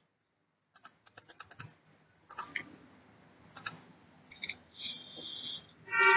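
Clicks and keystrokes on a computer keyboard: a quick run of about eight clicks about a second in, then scattered further clicks, with a brief pitched sound near the end.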